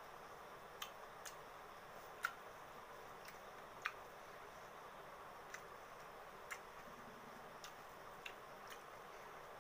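A person eating rice and curry with their fingers: about ten faint, irregular wet clicks and smacks of chewing, over a steady low hiss.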